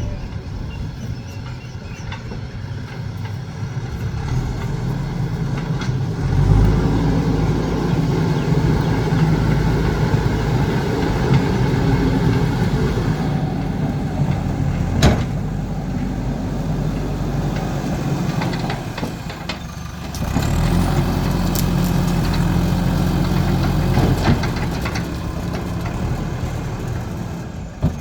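Diesel engine of a JCB backhoe loader running, revving up under load about six seconds in and again about twenty seconds in, with a sharp click about fifteen seconds in.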